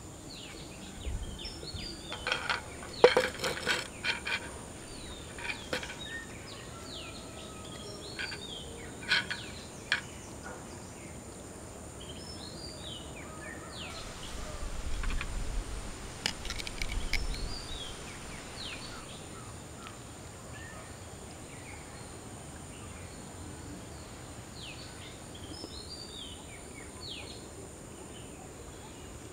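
Outdoor ambience of small birds chirping again and again over a steady high-pitched drone, with a few sharp knocks and clatters about three seconds in and again later.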